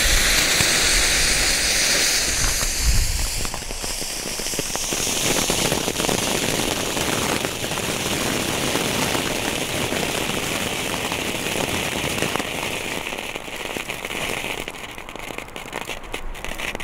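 Four small strobe gold fountains burning together, a dense hissing spray of sparks with crackling. The spray thins near the end, leaving scattered sharp crackling pops.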